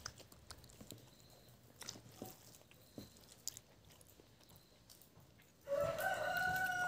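Faint mouth clicks of chewing, then a rooster crows once, one long call near the end.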